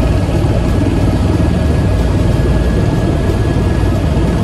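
Helicopter engine and rotor noise, a loud, steady drone with a faint thin whine above it.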